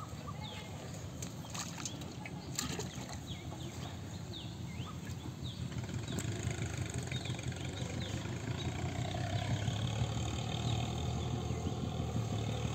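Small birds chirping again and again, short quick calls, over a steady low engine drone that grows louder in the second half.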